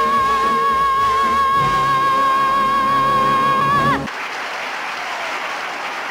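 A woman singer holds one long high final note with a wavering vibrato over an orchestra; it cuts off about four seconds in and is followed by applause.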